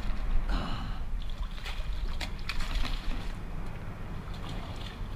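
Water splashing and sloshing around a fishing kayak, in a few short irregular bursts, over a steady low rumble of wind on the microphone.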